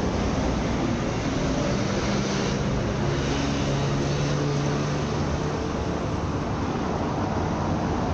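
Steady vehicle noise with a low engine hum that holds for a few seconds in the middle, then fades.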